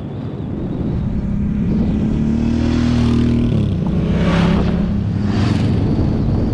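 Motorcycle engine running under way with heavy wind rushing over the microphone. There are two brief whooshes a little past the middle.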